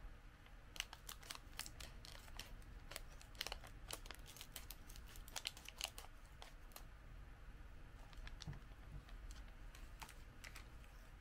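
Clear plastic snack wrapper crinkling and being cut open with scissors: a quick run of faint crackles and clicks, then a lull and a few more crackles near the end.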